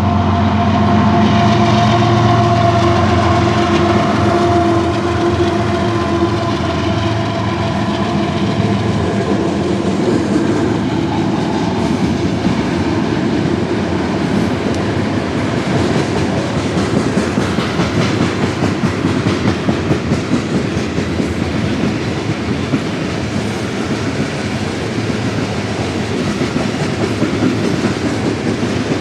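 Union Pacific diesel locomotives passing with a steady engine drone that fades after about ten seconds, followed by a long string of coal cars rolling by with a continuous rhythmic clatter of wheels on the rails.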